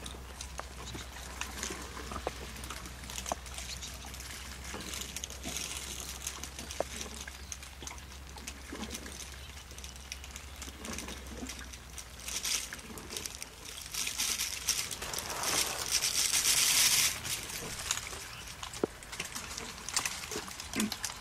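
Steady rain with the crackle and snap of twigs and leaves as an African elephant feeds on branches. A louder rushing swell builds past the middle and cuts off fairly suddenly.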